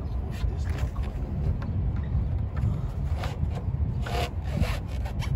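Plastic air intake duct rubbing and scraping against the engine parts as it is pushed and twisted into place by hand, in irregular scuffs over a steady low rumble.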